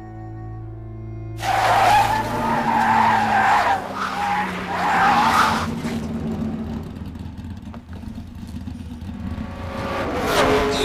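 Soft music gives way about a second and a half in to a loud race-car sound effect: tyres skidding with a wavering squeal over a noisy rush. It dies down after about five seconds and swells again near the end.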